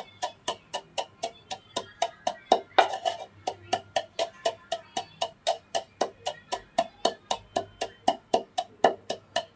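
Wooden pestle pounding crushed naphthalene (mothball) powder in a wooden mortar: a steady run of dull knocks, about four a second.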